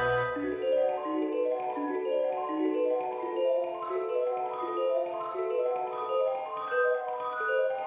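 Background music: a light, bouncy melody of quick struck notes on mallet percussion. A deep bass line fades out about a second in.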